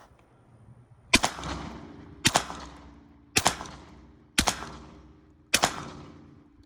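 Semi-automatic 12-gauge shotgun firing five rounds about a second apart. Each loud shot is followed by a trailing echo.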